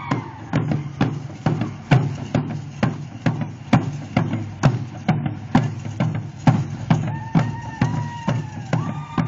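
Drum beating a steady danza rhythm of about two strikes a second, each stroke a deep thud with a sharp click on top.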